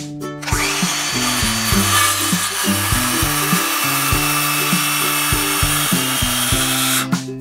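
DeWalt cordless circular saw cutting through an old barnwood beam. The blade noise starts about half a second in and stops near the end.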